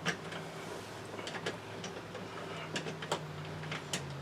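A few faint, scattered clicks and taps of hands handling the parts of a car door, over a steady low hum.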